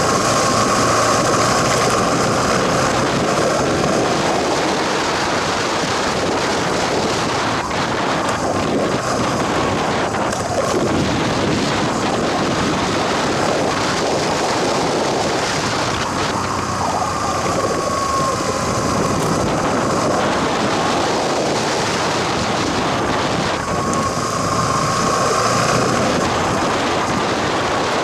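A vehicle's engine running steadily over an unpaved gravel forest road, mixed with wind on the microphone. A whine in the engine note rises and falls a few times as the speed changes.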